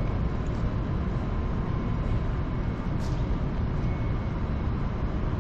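Steady low rumble of city traffic, with one short click about three seconds in.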